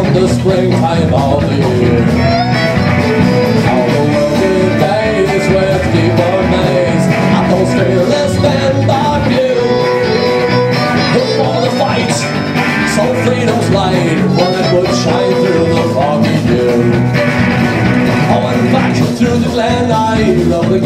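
Live Irish rock band playing an instrumental passage: a fiddle melody over electric guitar, bass guitar and drums.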